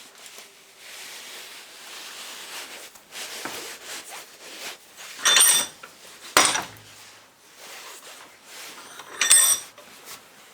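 Metal starter-solenoid parts being handled and set down on a workbench: sliding and rubbing, with three sharp metallic clinks in the second half, two of them ringing briefly.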